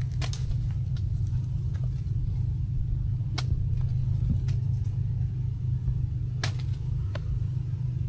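Small motorcycle engine running steadily, with a few light clicks about every three seconds.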